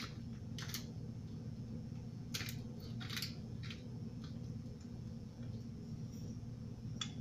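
Spice shaker of pepper shaken over a raw chicken: several short, sharp rattles with uneven gaps, over a steady low hum.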